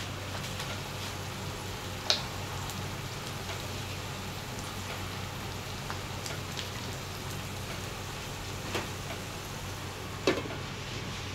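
Potato-and-egg omelet frying in a skillet: a steady sizzle with a few sharp pops. About ten seconds in, a glass lid clinks down onto the pan.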